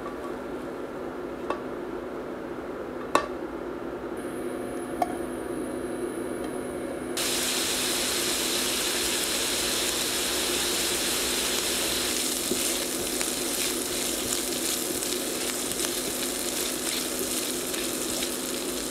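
Diced bacon sizzling and crackling as it fries in a stainless steel pan, starting suddenly about seven seconds in. Before that, a low steady hum with three sharp clinks, from cooked chicken pieces being tipped out of the pan into a glass bowl.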